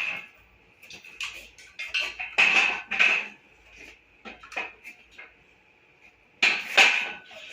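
Metal tools and engine parts clinking and clattering as an engine is taken apart, in irregular knocks with two louder clatters, one about a third of the way in and one near the end, over a faint steady high whine.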